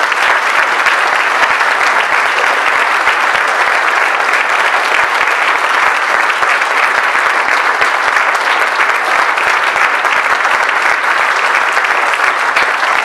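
Audience applauding: dense, even clapping that holds at a steady level without building or fading.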